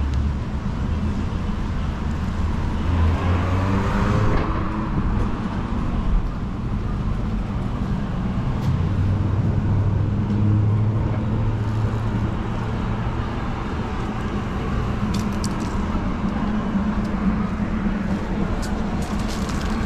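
Street traffic: steady car engine and tyre noise, with one vehicle passing close about three to four seconds in.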